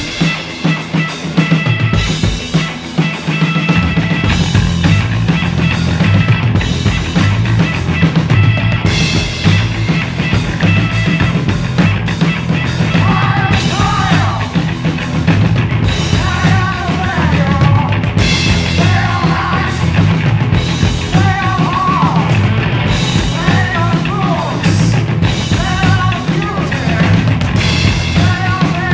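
Rock band playing live: electric guitars over a drum kit with a steady beat. About halfway through, a man starts singing over the band.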